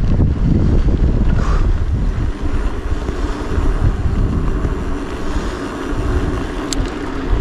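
Strong wind buffeting the microphone over a mountain bike's tyres rolling down a gravel track, with one short sharp click near the end.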